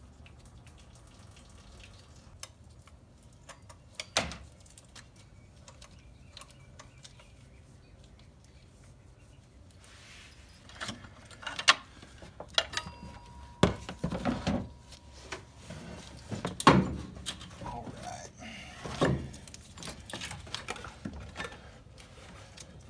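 Hand tools and metal parts clanking and knocking while a power steering pump's bottom mounting bolt is removed and the pump is pried off the engine. There is a single knock about four seconds in, then a busier run of sharp clanks and clicks from about ten seconds on.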